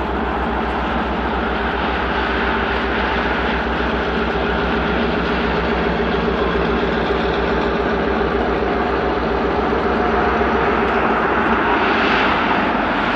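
Diesel locomotive engine running steadily with a fast, even low throb, growing a little louder near the end. The source is the museum train's Wabash F-7 diesel-electric locomotive.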